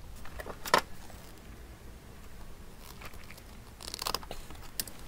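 Small clicks and rustles of hands handling a bundle of thin automotive wires, with a short crunch of side cutters biting into a thin wire about four seconds in.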